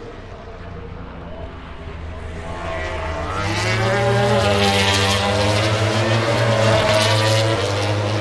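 MotoGP racing motorcycles at high revs, growing louder as they approach and pass, loudest about four to seven seconds in, then fading a little. Several engine notes rise and waver in pitch together.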